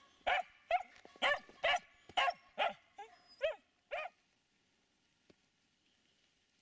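Finnish Spitz barking: a run of about eight sharp, high-pitched barks at roughly two a second, stopping about four seconds in.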